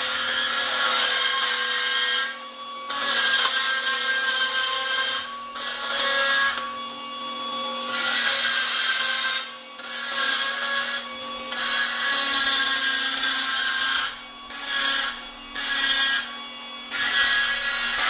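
Die grinder with a rotary burr grinding welded horseshoe steel, cleaning off weld spatter and smoothing the welds. The motor whines steadily throughout, while the harsh grinding noise breaks off briefly about eight times as the burr lifts off the metal.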